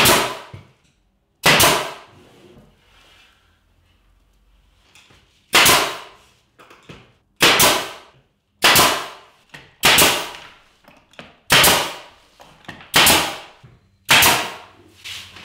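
Pneumatic finish nailer shooting nails through door casing into the wall, nine sharp cracks at irregular gaps of one to two seconds, each dying away within about half a second.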